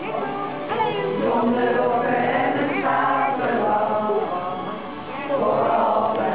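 Several voices singing a song together in Dutch, reading the words from lyric sheets.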